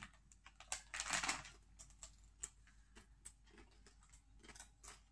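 Chewing and crunching of a milk-chocolate-covered potato chip: quiet, scattered short crackles, with a longer, louder crunch about a second in.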